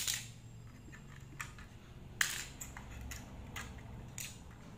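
Plastic LEGO pieces clicking as they are unclipped from a built model and set down on a hard floor: a handful of sharp, separate clicks, the loudest about two seconds in.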